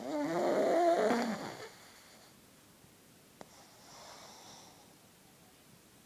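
A pug snoring in its sleep: one loud, rough snore with a wavering pitch over the first second and a half, then a fainter breath a couple of seconds later. The noisy breathing is typical of the breed's short, flat-faced airway.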